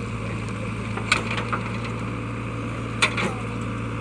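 JCB digger's diesel engine running steadily, with two sharp knocks, about a second in and three seconds in, each followed by a fainter one.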